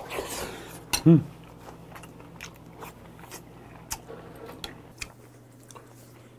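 Close-miked eating sounds of a man chewing a spoonful of rice and stew, with soft wet mouth clicks. A short hummed "mm" about a second in is the loudest sound.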